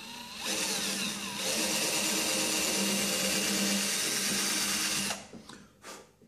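Small electric drill running steadily for about four and a half seconds, boring a hole through the model railroad layout for a track feeder wire, followed by a brief second burst near the end.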